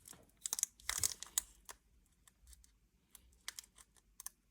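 Foil Pokémon booster pack wrapper crinkling and crackling in short sharp clicks as it is handled and pulled at to open it, busy at first and then only a few scattered clicks.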